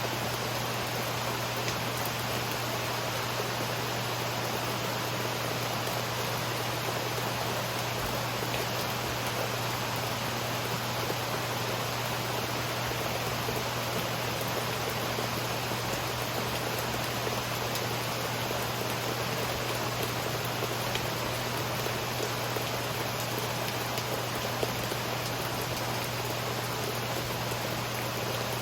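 Steady rain falling, an even hiss with faint scattered drop ticks and a steady low hum beneath it, no thunder.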